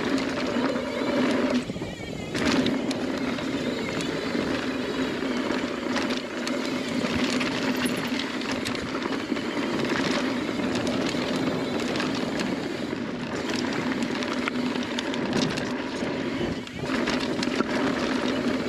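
Mountain bike descending a dirt trail: tyres rolling over dirt and a steady buzz from the rear hub while coasting, which drops out briefly about two seconds in and again near the end. Scattered knocks and rattles come from the bike over bumps.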